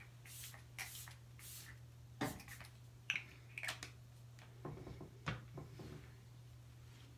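Facial mist spray bottle hissing in three quick sprays, followed by a few light clicks and soft pats of hands on the face.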